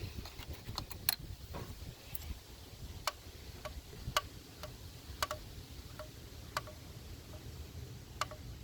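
Faint, sharp plastic clicks at irregular intervals, roughly one a second, as a BMW ignition coil is twisted and worked out of its well in the cylinder head.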